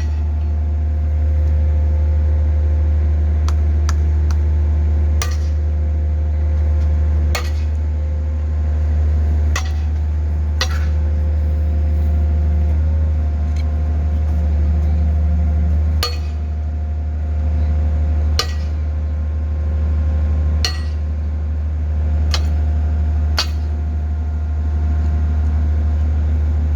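Hydraulic static pile driver running: a steady, loud low drone from its engine and hydraulic power unit, broken by about nine sharp metallic clanks at uneven intervals of one to five seconds.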